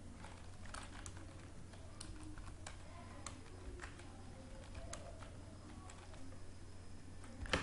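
Computer keyboard being typed on: an irregular run of light key clicks, with one louder click near the end, over a low steady hum.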